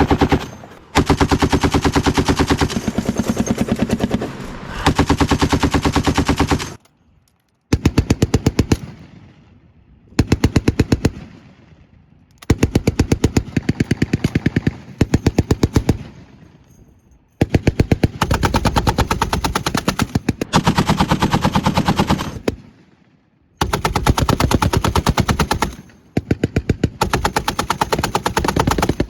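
Automatic machine-gun fire: long bursts of rapid, evenly spaced shots lasting from about one to five seconds each, separated by short pauses in which the reports echo away.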